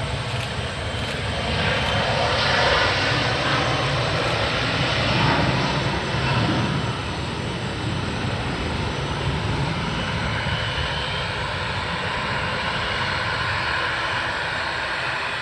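Boeing 737-300's CFM56 turbofan jet engines at take-off power: a loud, steady jet rush that swells about two to five seconds in, then holds.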